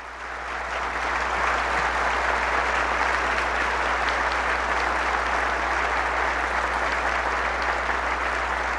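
Congregation applauding in a large, reverberant chapel, swelling up over the first second and holding steady.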